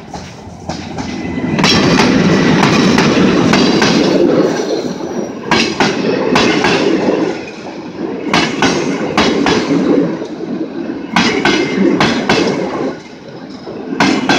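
Passenger train behind an EP07 electric locomotive passing close by: a loud steady rush of wheels on rail, with a cluster of clicks every few seconds as the coach bogies cross the rail joints.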